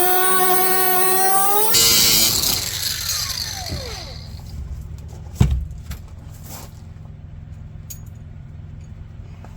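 A high-speed electric power tool runs at a steady whine, is switched off about two seconds in, and spins down with a falling pitch. A single knock comes about halfway through, and a low steady hum remains after it.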